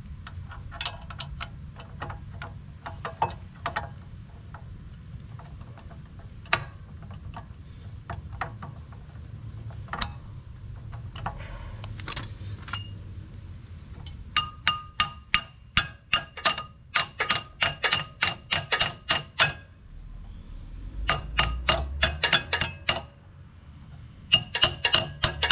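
Hammer striking steel: scattered single taps, then fast runs of ringing metal blows, about four a second, in three bursts over the second half. This is hammering roll pins into the skid steer's Quick-Tach coupler. A steady low hum runs underneath.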